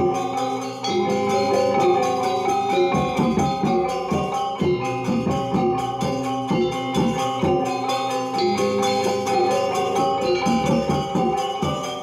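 Balinese gamelan gong kebyar ensemble playing: interlocking bronze metallophones and gongs ringing in a dense, steady stream of struck notes over drums.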